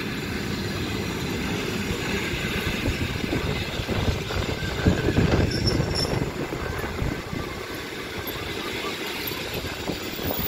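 Passenger train coaches at a platform: a steady rail rumble that swells about four to six seconds in, with a faint squeal of wheels on rails.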